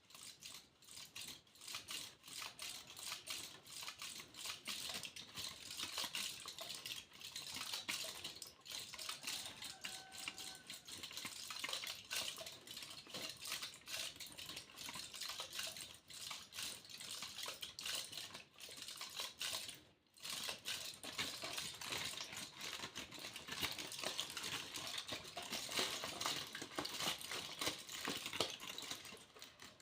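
Aluminium foil being crinkled and handled: a dense, continuous crackling of tiny clicks, with a brief pause about two-thirds of the way through.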